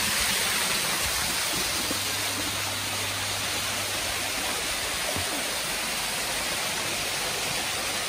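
Artificial waterfall pouring into a swimming pool: a steady rush of falling water splashing onto the surface, easing slightly after the first second or two.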